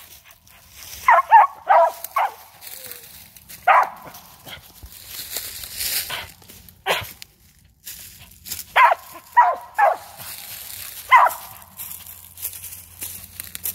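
Squirrel dog barking treed at the foot of a tree, marking a squirrel up in it: short, sharp barks, about ten in all, some coming in quick runs of two or three with pauses of a few seconds between.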